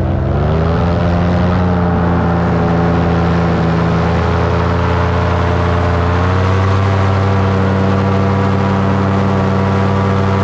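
Paramotor engine and propeller running in flight. The engine note rises over the first second or so as the throttle opens, holds steady, then steps up again about six seconds in.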